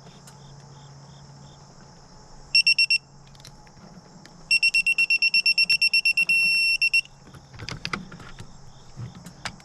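Digital torque wrench beeping as a 1/2-inch flare nut is tightened to 52 N·m. There is a short run of fast beeps, then about two seconds of rapid beeping that turns into a steady tone as the set torque is reached. A few sharp metal clicks follow near the end.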